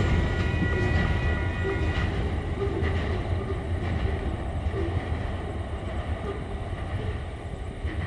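Loaded coal hopper wagons rolling away along the track, a steady low rumble of wheels on rail that fades as the train recedes. A thin high whine sounds at first and stops about two seconds in.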